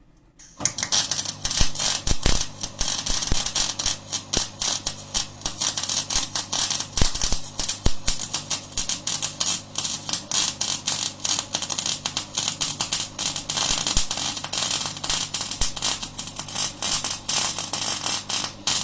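MIG welding arc from a Cebora Snap-MIG welder, running a continuous bead on steel angle iron: a loud, dense crackling that strikes up about half a second in, runs without a break and cuts off sharply near the end.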